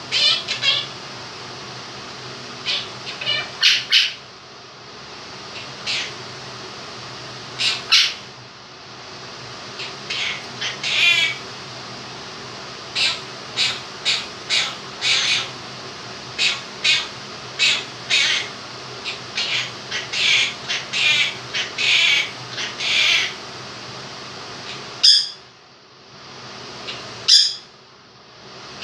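Quaker parrot (monk parakeet) giving a long run of short, high squawks and chirps, many in quick succession, over the steady hum of an electric fan. Two louder squawks come near the end.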